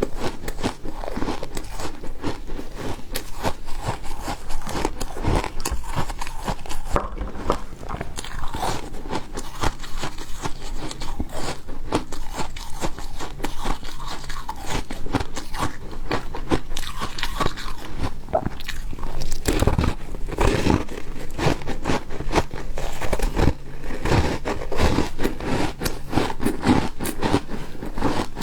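Refrozen ice being bitten and chewed close to the microphone: continuous dense, irregular crunching and crackling.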